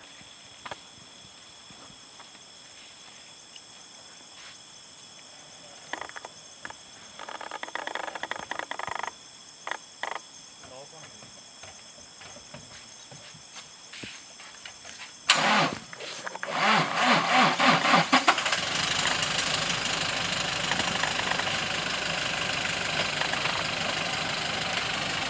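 Safari jeep's engine cranking and catching a little past halfway, then running at a steady idle. Before it, only steady high-pitched insect calls.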